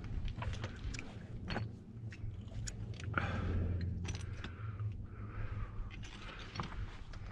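Scrambling over blocky, loose rock: irregular clicks, scrapes and crunches of hands and boots on stone and gravel, over a steady low rumble.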